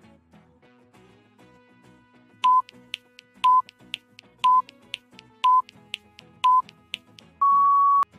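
Electronic countdown timer: five short beeps about a second apart, then one longer, slightly higher beep signalling that time is up, with faint ticks between the beeps. Soft background music runs underneath.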